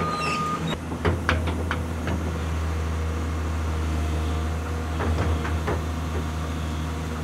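Excavator's diesel engine running steadily while the bucket works, dropping loose soil into the dug-out tank hole. A few short clunks come about a second in and again around five seconds.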